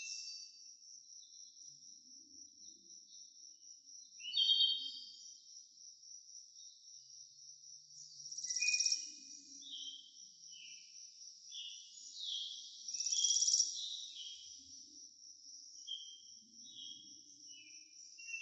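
Insects trilling steadily in a high, pulsing note, with birds chirping and calling over them, louder a few times.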